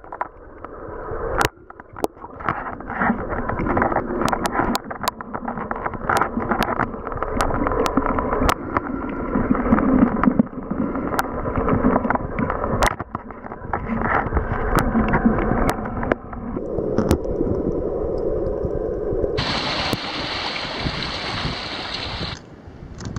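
Underwater sound through a camera's waterproof housing: muffled water movement and gurgling with many scattered sharp clicks. Near the end a loud, even hiss of rushing water lasts about three seconds and cuts off suddenly.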